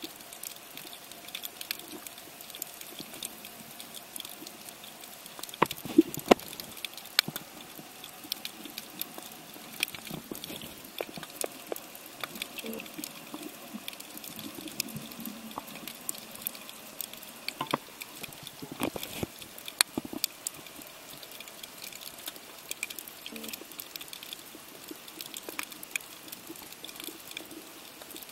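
Underwater sound on a shallow reef, picked up by the camera: a steady hiss with constant scattered crackling clicks, and a few louder sharp snaps around six and twenty seconds in.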